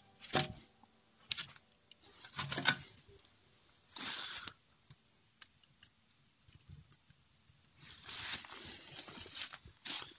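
Wood fire in a smokehouse firebox crackling, with scattered sharp pops. Short bursts of rustling noise come about four seconds in and again near the end.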